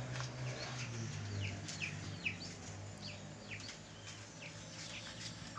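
Birds chirping: a steady series of short, falling chirps, several a second, over a low hum that fades after the first second or two.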